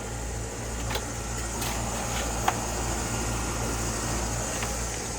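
A steady low machine hum, with a few faint clicks and one sharp click about halfway through.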